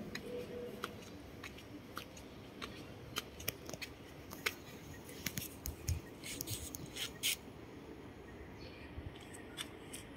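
Scattered short, sharp clicks and ticks at an irregular pace, thickest in the middle, over a faint steady background.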